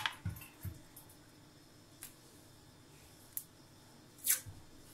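Fingers peeling the clinging casing off a fresh sucuk sausage over a plastic cutting board: two soft knocks at the start, a couple of faint clicks, and a short scratchy tear about four seconds in.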